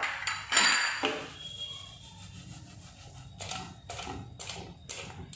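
Wooden spatula stirring and scraping paneer cubes around a frying pan: one loud scrape about half a second in, then a run of short scraping strokes about twice a second over the last couple of seconds.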